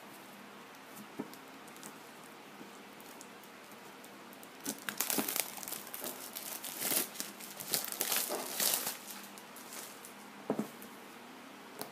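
Plastic shrink-wrap being torn and peeled off a cardboard earphone box and crumpled: a dense crinkling for about four seconds, starting about five seconds in. A couple of light taps follow near the end.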